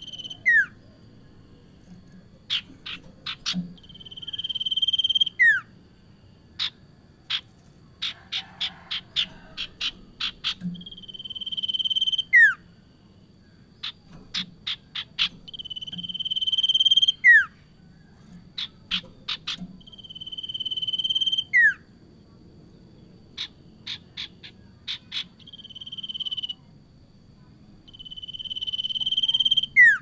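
Common iora (sirtu) singing: runs of quick, sharp chip notes, each song phrase ending in a long whistle that swells and then drops away in a quick downward slur, six times over.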